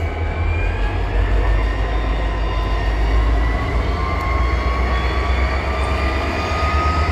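Red DSB class ME diesel locomotive running at the station with a steady low rumble, a thin whine slowly rising in pitch above it.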